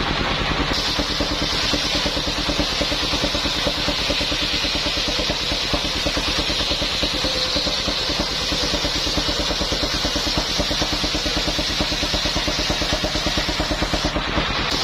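Engine-driven circular sawmill rig running steadily, its engine pulsing rapidly and evenly under a constant high-pitched noise.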